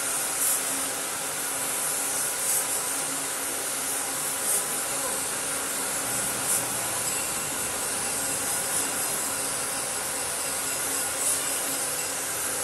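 Gravity-feed compressed-air spray gun spraying car paint onto a door panel: a steady air hiss, with short louder bursts about every two seconds.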